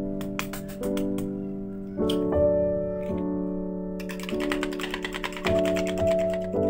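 Piano background music, with a few sharp taps near the start as an egg is cracked, then a fork beating raw eggs in a plastic bowl: rapid, dense clicking through the last few seconds.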